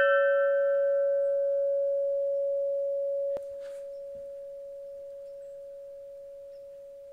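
Large hanging tube chime ringing out after being struck: one steady tone whose brighter overtones fade away over the first couple of seconds. About halfway through there is a click and a sudden drop in level, and the tone carries on quieter, slowly fading.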